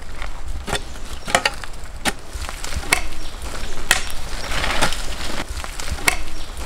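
Irregular sharp cracks and snaps of plant stalks and woody debris, about one a second, with a burst of leaf rustling about four and a half seconds in, as arrowroot plants are broken down to get at their tubers.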